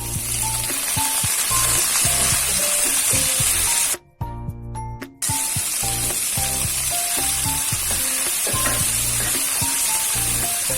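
Food sizzling as it fries in hot oil in a pan, a dense steady sizzle that cuts out for about a second about four seconds in and then resumes.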